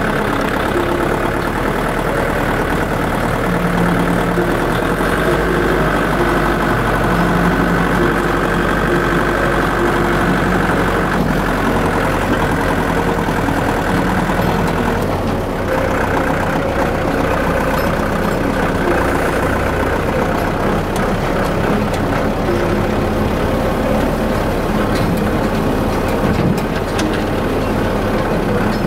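A motor vehicle's engine running steadily, its pitch shifting a little up and down from time to time.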